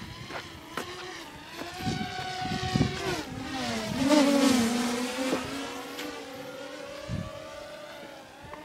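A motor engine passing by: a pitched hum that swells to its loudest about four seconds in, its pitch dropping as it passes, then slowly fades. A few low thumps come in the first half.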